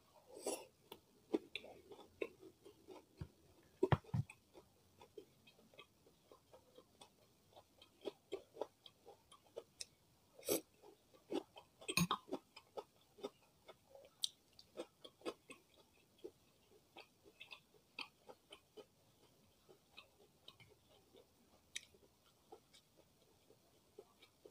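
Close-miked chewing of a mouthful of martabak telor, the egg-and-minced-meat stuffed fried pastry: an irregular run of small mouth clicks, a few of them louder.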